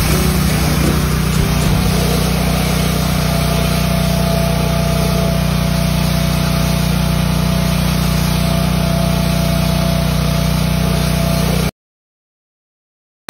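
Pressure washer running steadily: a constant motor or pump hum under a loud, even hiss of spraying water. It cuts off abruptly to silence a little before the end.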